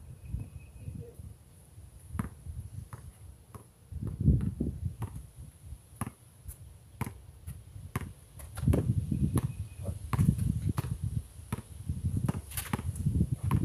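Basketball bouncing on an outdoor asphalt court: sharp slaps about every 0.7 s as it is dribbled, mixed with shoe steps. Bursts of low rumble come and go under them and are loudest in the second half.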